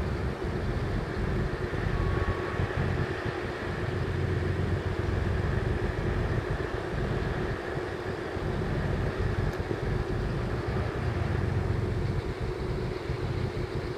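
A ship's engines droning steadily as the training ship comes in, with a constant hum over the noise and irregular low gusts of wind buffeting the microphone.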